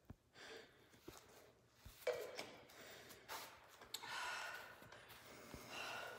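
Faint, heavy breathing of a woman catching her breath after a hard exercise interval, with a few light clicks in the first two seconds.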